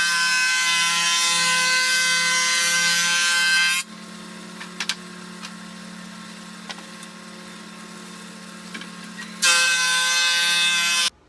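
Thickness planer running, with a loud, high whine while its cutterhead is cutting a wooden board. About four seconds in the cutting stops and the machine runs on more quietly with a few clicks and knocks. The loud cutting whine comes back near the end and cuts off suddenly.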